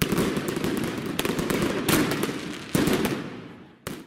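Consumer firework batteries going off: a run of sharp bangs, about eight, over continuous crackling, the last one just before the end.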